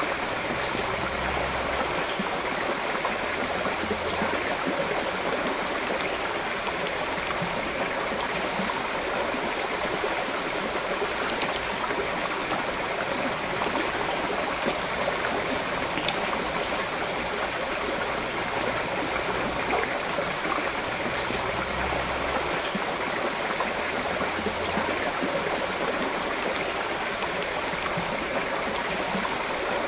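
Shallow stream running steadily over a gravel and stone bed.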